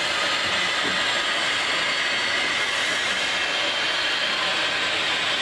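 Steam locomotive venting steam low beside its driving wheels, a steady hiss.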